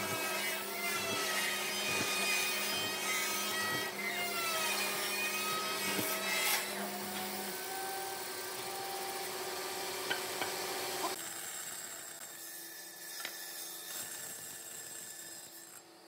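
Benchtop hollow-chisel mortiser running, its square chisel and auger plunging into wood to cut a mortise. The motor's whine dips in pitch as the bit loads up. The cutting noise thins out and quietens after about eleven seconds.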